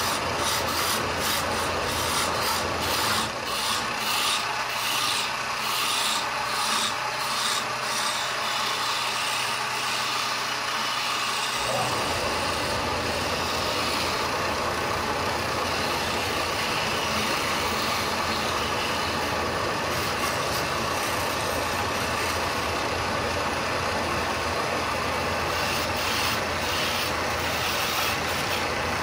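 Wood lathe turning a long wooden baluster while a hand-held turning tool cuts it, making a steady scraping hiss as shavings come off. The lathe's motor runs underneath. Its low rumble drops away for several seconds and returns abruptly about twelve seconds in.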